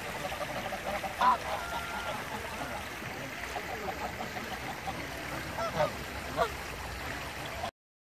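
Geese on the water honking a few times: short calls about a second in and again around six seconds, over a steady background hiss. The sound cuts out abruptly shortly before the end.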